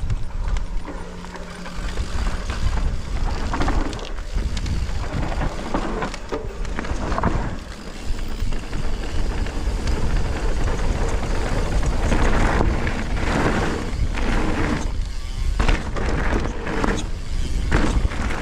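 Wind rushing over a helmet-camera microphone and mountain-bike tyres rolling fast over a dirt trail, with scattered knocks and rattles from the bike. It grows louder about halfway through.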